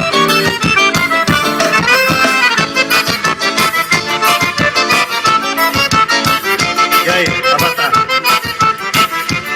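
Accordion-led music with a steady beat, played loud through a car sound system.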